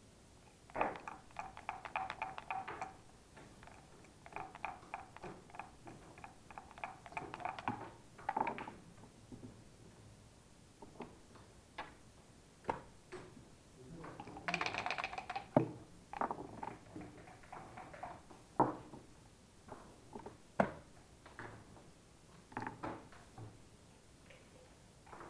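Backgammon dice rattling in dice cups in three spells of rapid clicking, near the start, a few seconds later and about halfway through, with single sharp clicks of dice and checkers landing on the board in between.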